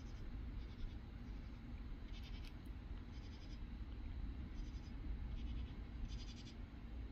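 Night insects calling: short pulsed rasps, high in pitch, repeating about once a second and alternating between two pitches, over a steady low rumble.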